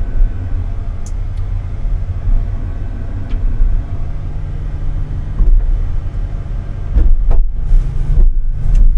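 Timber truck engine running while the loader crane's hydraulics work: a steady low rumble, with a hum that comes in about four seconds in and again near the end. A few sharp knocks come in the last two seconds.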